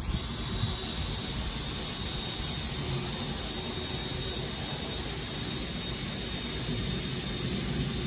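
Cordless drill running steadily without a break, drilling through the bus's metal roof.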